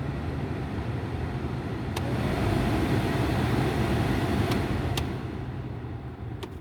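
Volkswagen Polo sedan's cabin heater blower fan blowing air through the vents. It is clicked up to a higher speed about two seconds in and clicked back down near the end, with the speed switch clicking. Only the rush of air is heard, with no squeal from the freshly cleaned fan.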